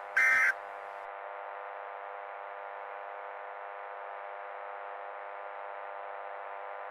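One short burst of Emergency Alert System data tones, the warbling two-tone end-of-message signal that closes an EAS alert, just after the start. A steady electronic buzzing drone runs under it and continues at a lower level.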